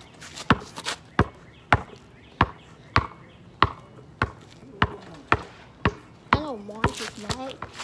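A basketball dribbled hard on pavement: a steady run of sharp bounces, about two a second.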